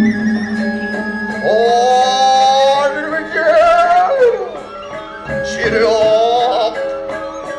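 Balinese gamelan music accompanying a topeng mask dance, with sustained instrumental tones under a man's voice singing long, wavering, ornamented phrases, one starting about a second and a half in and another about five and a half seconds in.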